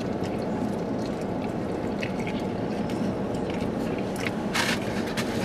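Burrito eating: wet chewing and small mouth and hand clicks over a steady low hum inside the car, with a short rustle of the wrapper about four and a half seconds in.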